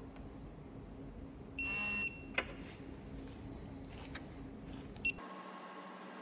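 Snap-on digital torque wrench giving a steady high-pitched beep for about half a second as it signals the set torque on the idler pulley bolt, then a single sharp click, and two short beeps near the end.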